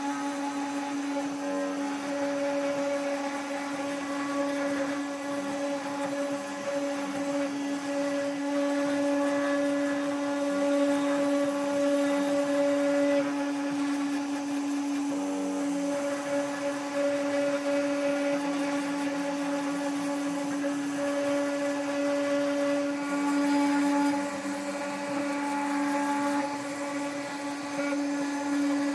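Two Trees TTC450 hobby CNC router's spindle running with a steady high whine while its end mill cuts into birch plywood. The level shifts slightly now and then as the bit moves through the cut.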